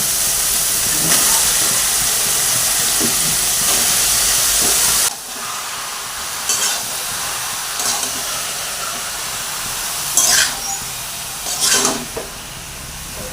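Freshly added shredded bottle gourd sizzling loudly in hot spiced oil in a pan. About five seconds in the sizzle drops suddenly to a quieter hiss, with a few short scrapes of a spatula stirring the pan.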